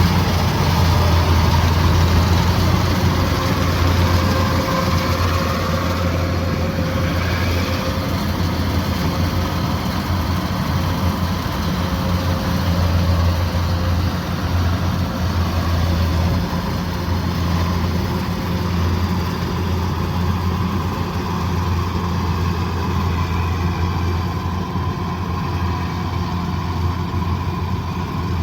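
Kubota DC108X combine harvester's diesel engine running steadily, a low, even drone.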